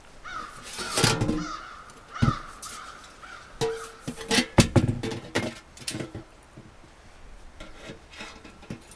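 Crows cawing repeatedly through the first few seconds, together with sheet-metal stovepipe clanking and knocking as it is handled. The loudest knocks come in a cluster after the middle, one with a short metallic ring.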